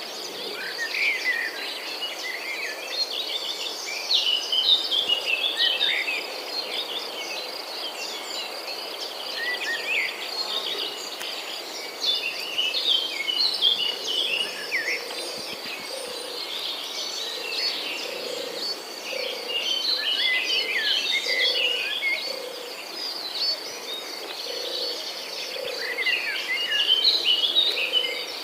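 Birds chirping in busy bursts over a steady high insect trill. From about halfway on, frogs croak low in an even rhythm, about once a second.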